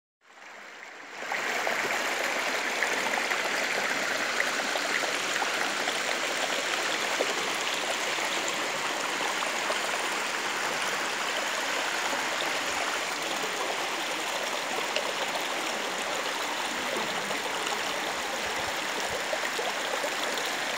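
Water of a small waterfall cascading over rocks: a steady rushing splash that fades in over the first second and then holds even.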